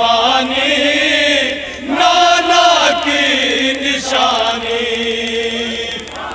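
Men's voices chanting a noha, a Shia mourning lament, in long drawn-out melodic lines with brief breaks between phrases.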